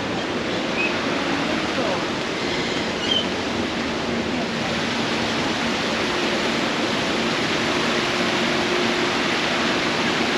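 Steady rush of falling water, as from a waterfall or cascade running into a pond.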